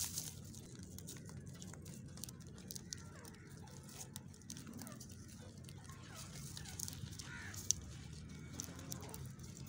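Faint crackling and rustling of dry straw as young rabbits nibble and shuffle about in it: scattered light clicks over a steady low background rumble, with one sharper tick near the end.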